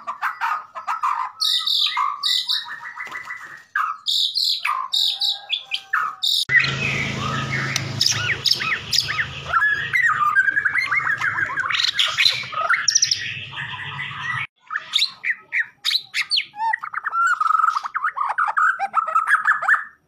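White-rumped shamas (murai batu) singing: loud, varied whistled phrases with fast chattering trills. The sound cuts abruptly between separate recordings several times.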